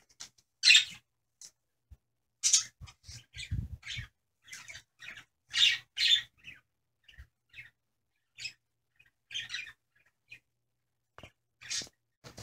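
Siberian husky sniffing hard at close range, in quick irregular snuffles and huffs with short pauses between them.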